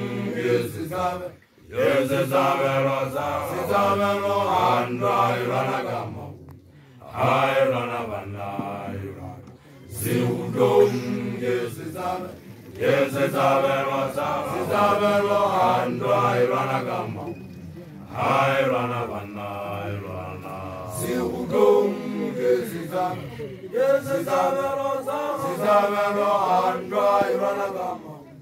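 Male voice chanting in long rising-and-falling phrases, each a few seconds long, with short breaks for breath between them: a Basotho initiate's chant.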